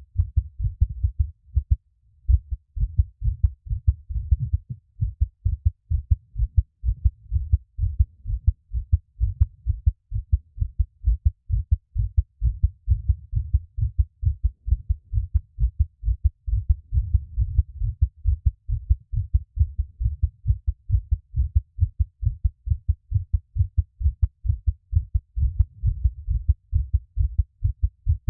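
A person's heartbeat picked up close by a microphone, beating fast and steadily as a run of low thuds, about four a second.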